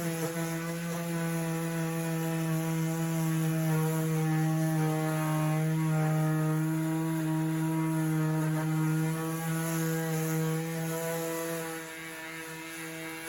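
DeWalt 20V XR DCW210B brushless 5-inch random orbital sander running at a low speed setting: a steady, even-pitched hum that gets a little quieter near the end.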